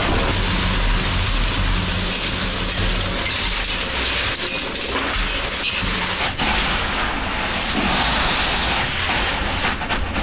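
Concrete mixer running steadily while wet concrete is mixed, with a scatter of clicks and knocks in the second half.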